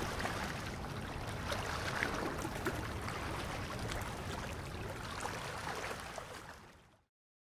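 Waterside ambience: water lapping over a steady low rumble, fading out to silence near the end.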